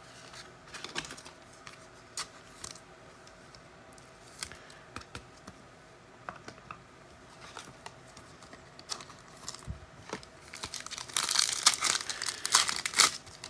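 A foil trading card pack being handled and torn open: scattered light clicks and rustles, then about ten seconds in a dense burst of crinkling and tearing as the wrapper is ripped.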